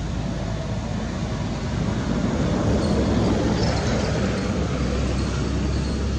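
A motor vehicle's engine running, swelling about two seconds in to a steady low hum with a rumble.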